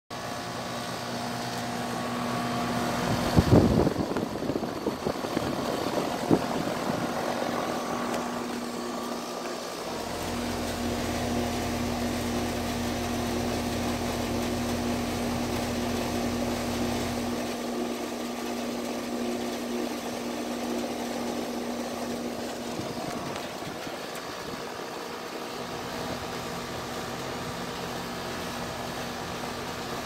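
Nordyne central air conditioner condensing units running: a steady compressor hum with the whir of the condenser fan. There are a few brief thumps about three to six seconds in.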